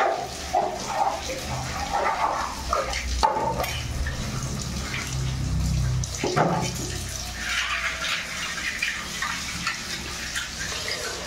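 Water splashing and a brush scrubbing on a wet tiled floor in a small tiled room, with sharp knocks about three and six seconds in.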